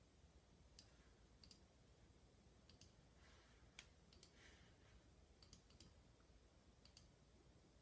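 Near silence with faint, irregular clicks from computer controls, about a dozen scattered through, made while copying and pasting a list.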